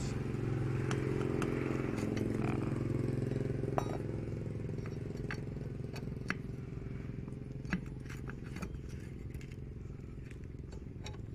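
A steady engine hum, strongest for the first four seconds and then quieter, with scattered light metallic clicks and scrapes of a T-handle wrench turning the bolts on a pump housing.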